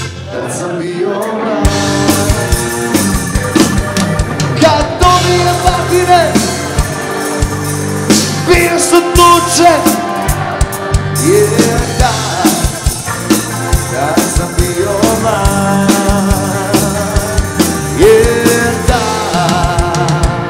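Live pop-rock band playing, with a drum kit keeping a steady beat under melodic lead lines.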